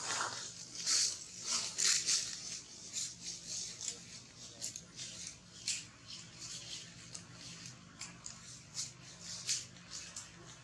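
Leaves and twigs rustling and crackling in short, irregular bursts as monkeys shift about in a tree, busiest in the first couple of seconds and thinning out after.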